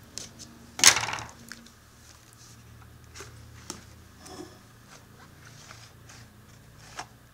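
Hands handling a paperboard product box and its cardboard insert: a loud, sharp handling noise about a second in, then scattered light taps, clicks and soft rustles as the box is opened and the insert is lifted out.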